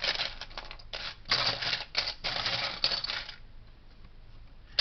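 Small plastic Lego pieces clicking and clattering as they are handled, a rapid run of light clicks that dies down about two-thirds of the way through.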